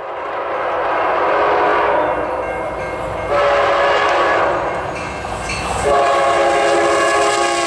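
Locomotive air horn sounding in three long blasts, its chord shifting between them, over the low rumble of a moving train.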